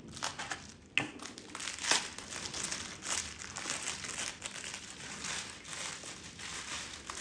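Plastic bubble wrap crinkling and rustling as it is pulled apart by hand to unwrap a small item, with a sharp click about a second in.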